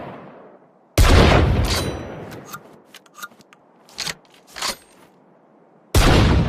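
Browning Citori 725 over-and-under shotgun fired twice, about five seconds apart, each shot sharp and trailing off in a long echo. Between the shots comes a short run of sharp clicks and clacks.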